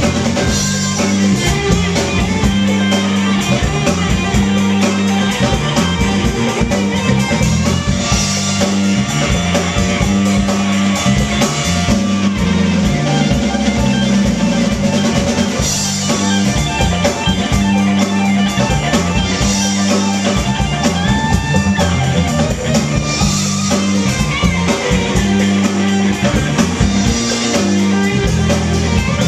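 Live rock band playing: electric guitar over a drum kit keeping a steady beat, with a repeating low groove underneath.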